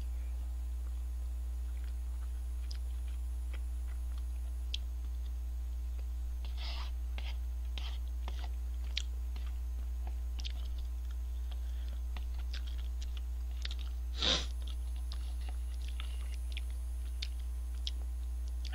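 A person chewing cup noodles close to the microphone, with small mouth and spoon clicks, over a steady low hum. One louder sharp sound about 14 seconds in.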